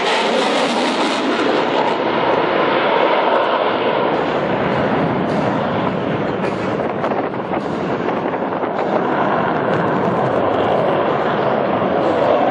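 Twin-engine delta-canard fighter jet climbing steeply on afterburner: a loud, steady, rough jet noise with crackling through it.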